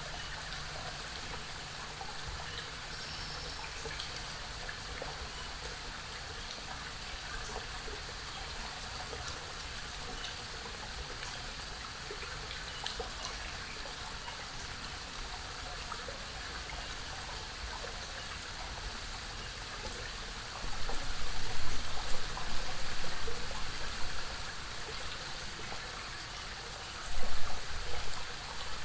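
Waterfall on a forest creek: steady rushing and splashing water. About two-thirds of the way in, and again near the end, it is broken by brief, much louder irregular bursts.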